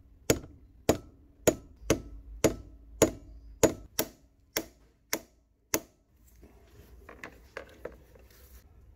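Hammer tapping a steel pin punch held in the pivot hole of an antique tobacco cutter, metal on metal: about eleven sharp, even taps, nearly two a second, stopping about six seconds in. Quieter handling noise of the metal parts follows.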